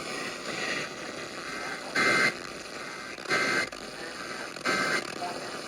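Radio receiver hiss and static between broadcasts, broken by three short louder bursts, each carrying a few steady tones, about 1.3 s apart.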